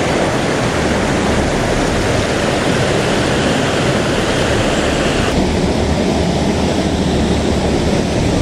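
Fast river water rushing steadily over rocks, a loud even noise; about five seconds in its higher hiss drops a little.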